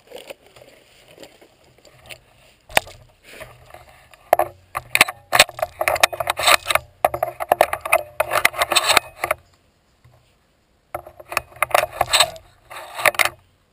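Handling noise from a shotgun with a camera mounted on it: rustling and clattering as the gun is shifted and tipped onto its side in the grass. It is sparse at first and busiest from about four seconds in, stops for about a second, then comes back in a last short spell near the end.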